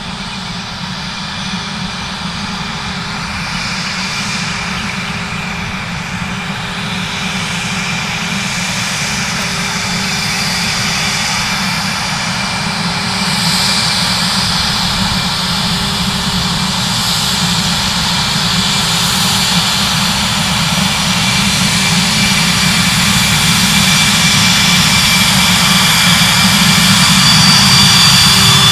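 Twin Williams FJ44 turbofan engines of a Cessna Citation CJ2+ business jet running at taxi power: a steady jet whine over a low rumble, growing gradually louder as the jet taxis closer.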